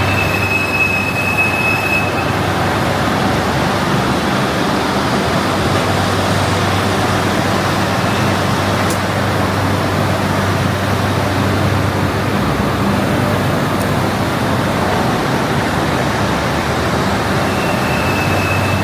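Machine-shop machinery running steadily, a dense even noise over a low hum. A thin high whine sounds for about two seconds at the start and briefly again near the end.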